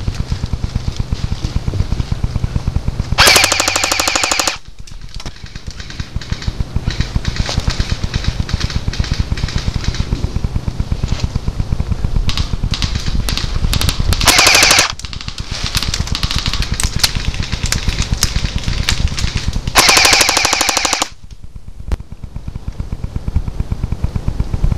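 Airsoft guns firing on full auto: a near-continuous rapid rattle of shots, with three louder bursts of about a second each, around three, fourteen and twenty seconds in.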